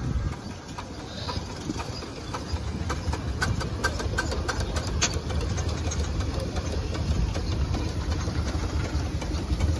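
Miniature scale steam engines driving past close by, a scale steam wagon in front: a low running rumble that grows louder as the wagon draws near, with scattered light metallic clicks about halfway through.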